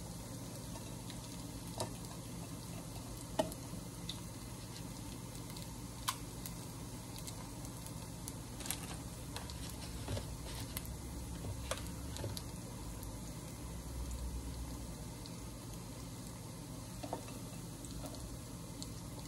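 Slices of luncheon loaf frying in a pan: a faint, steady sizzle, with a few light clicks and knocks scattered through.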